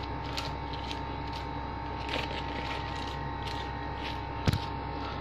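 Chopped salad vegetables being tossed in a bowl: faint rustling and soft clicks over a steady hum, with one sharper knock about four and a half seconds in.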